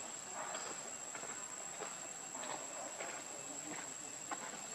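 Outdoor ambience: a steady high-pitched insect drone runs over scattered faint rustles and soft distant voices.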